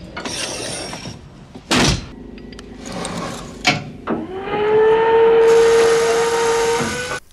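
Film sound effects of a powered cargo-loader exoskeleton: hissing, two sharp metallic clanks, then a steady motor whine that rises slightly in pitch for about three seconds and cuts off near the end.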